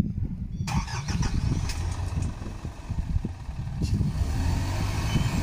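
An Isuzu truck's diesel engine running with a steady low rumble. About a second in, a steady hiss joins above it.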